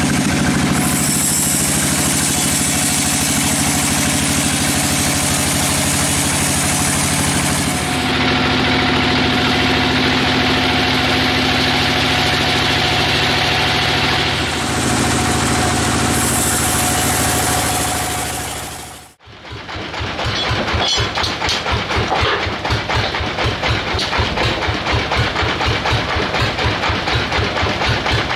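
Sawmill machinery running steadily, its pitch and character changing abruptly twice. It cuts out briefly about two-thirds of the way through, then comes back as a rapid, even pulsing machine beat.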